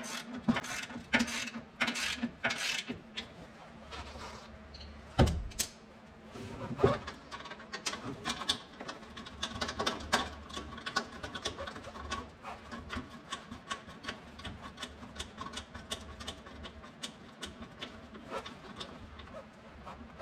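Hand work under a truck: many small clicks and rubbing of tools and parts being handled, with a louder knock about five seconds in and another about seven seconds in.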